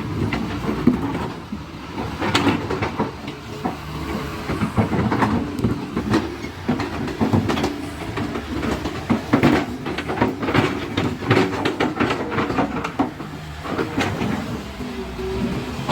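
Excavator working: its diesel engine running steadily under load with dense, irregular metal clanking and rattling throughout.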